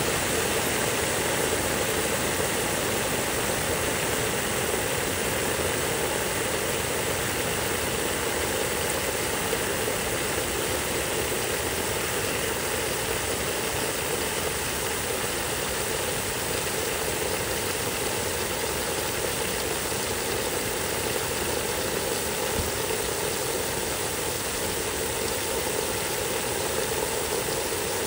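Steady rushing hiss of a water spray hitting soaked wood mulch.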